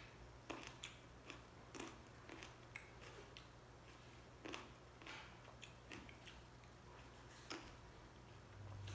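Faint mouth sounds of someone chewing grapes: soft, irregular clicks and squishes spaced about half a second to a second apart, over a steady low hum.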